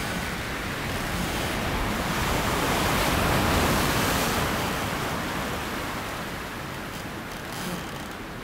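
Ocean surf: one wave of hissing noise swells up, peaks about three to four seconds in, then slowly recedes.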